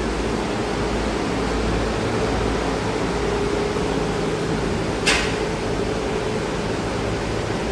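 Steady whirring drone of a large shop cooling fan, with a constant hum, and a single sharp tick about five seconds in.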